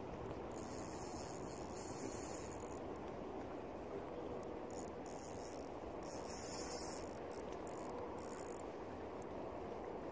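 Spinning reel's drag buzzing in bursts as a hooked sea bass pulls line off against it: one long burst about half a second in, then several shorter ones, over a steady low background rush.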